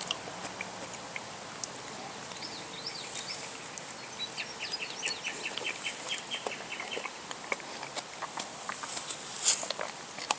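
A songbird singing, a run of quick high chirps from about two to seven seconds in, over scattered small clicks.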